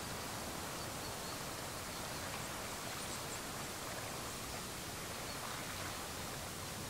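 Steady outdoor ambience: an even rushing noise of wind and the sea along a rocky shore, with no distinct events standing out.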